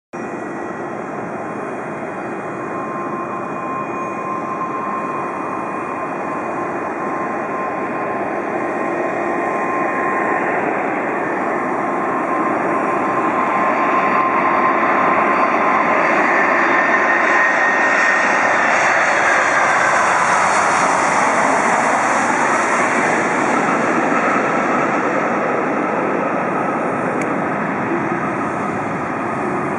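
McDonnell Douglas MD-11 freighter's three jet engines on final approach: a steady engine whine growing louder as the jet closes in, its tones dropping in pitch as it passes about twenty seconds in, then easing slightly as it goes down the runway.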